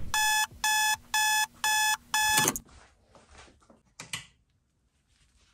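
Digital alarm clock beeping: a string of short, identical electronic beeps, about two a second, that stops about two and a half seconds in. Faint rustling and a single click follow.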